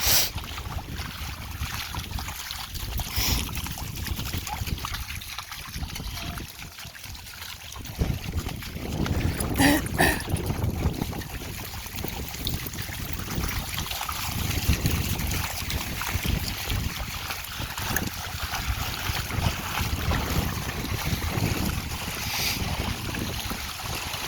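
Wind buffeting the microphone in gusts over a hiss of shallow water, with a few brief rustles or knocks, the loudest about ten seconds in.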